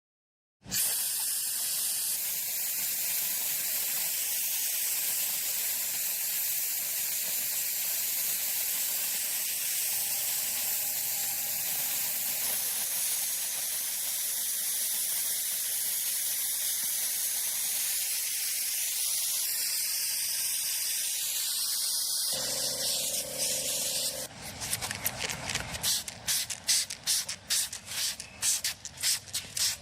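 Airbrush spraying with a steady hiss, then near the end a run of short, quick bursts as the spray is pulsed on and off.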